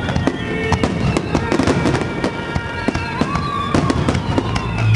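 Fireworks display finale: a dense, rapid barrage of shell bursts and crackling. Steady high tones run through it.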